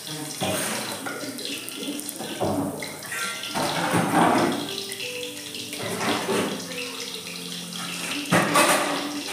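Tap water running and splashing as a plastic basket is rinsed, coming in several uneven surges.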